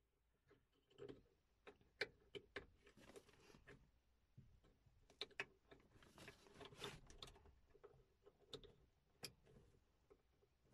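Faint scattered clicks, taps and short scrapes as hands handle plastic fittings and a wiring connector inside a stripped car door, behind the mirror mount.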